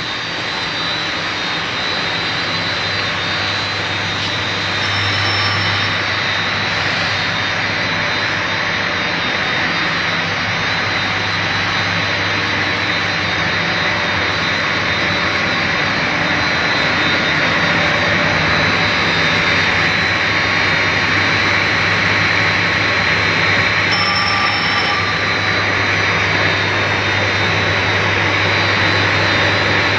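EPE foam tube extrusion machine running: a loud, steady rushing noise over a low hum, with a faint steady high whine.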